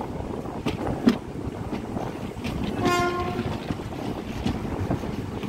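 Passenger train running, heard from on board: a steady rumble with scattered wheel clicks over the rail joints. A single short train horn blast, under a second long, sounds about three seconds in.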